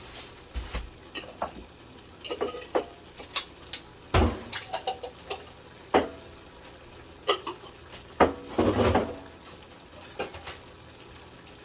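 Irregular clinks and knocks of a cooking utensil against a frying pan as tortillas are flipped and moved around in it, with a few louder knocks about four, six and eight seconds in.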